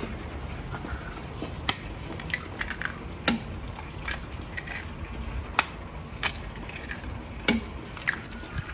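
Eggs being cracked open by hand over a stainless steel food processor bowl: a series of about six sharp shell cracks, a second or so apart, over a low steady background rumble.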